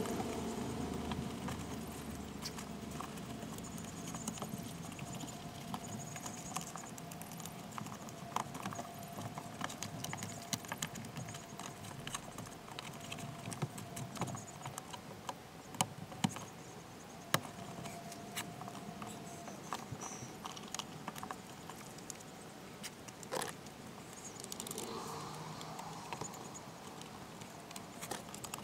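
Hand work on a BMW E46 car door: a run of scattered clicks, taps and light plastic rattles from the door's inner panel, wiring and trim being handled. A few louder knocks stand out.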